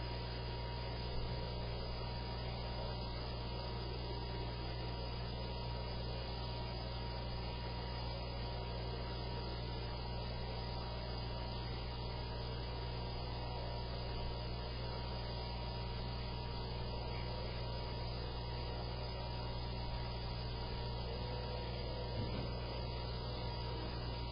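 Steady low electrical hum, unchanging throughout, with a thin steady higher tone above it.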